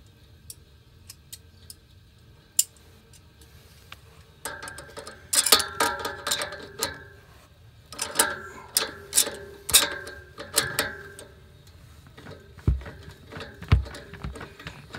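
Pliers gripping and turning the stem of a steam radiator's brass supply valve to open it back up, giving a run of metal-on-metal clicks and scrapes from about four seconds in. Two dull knocks follow near the end.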